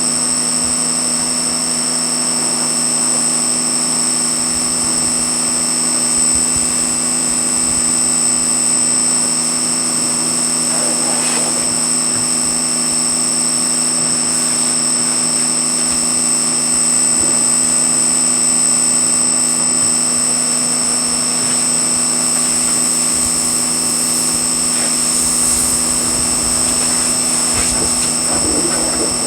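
Pressure washer running steadily with a constant drone and high whine, spraying water.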